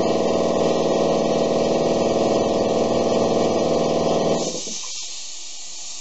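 An 80-gallon vertical electric air compressor's motor and piston pump running steadily, then switched off about four and a half seconds in, followed by a steady hiss of air escaping. It is running normally on its test start.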